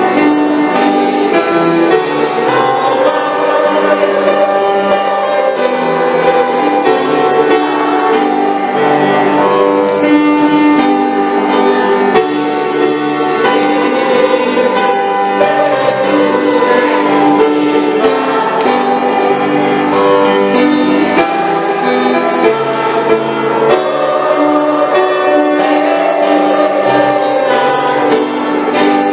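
Music playing steadily, with sustained chords and a melody line.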